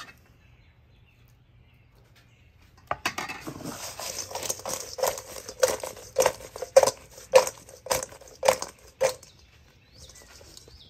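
Stainless steel mixing bowl shaken by hand to toss fries with gravy and cheese curds: the food sloshes and slides against the steel, and the bowl knocks with a short metallic ring about every half second. It starts about three seconds in and stops about nine seconds in.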